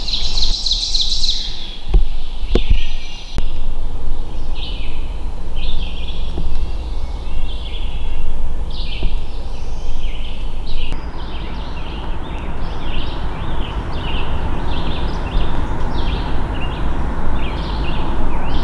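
Dawn bird chorus: several songbirds singing short chirping phrases over and over, with a denser trill at the start. A steady low rumble runs underneath, and two sharp knocks come about two seconds in.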